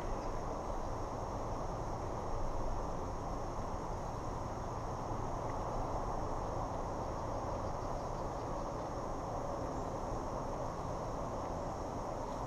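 Steady high-pitched drone of a chorus of insects, over a constant low rushing noise.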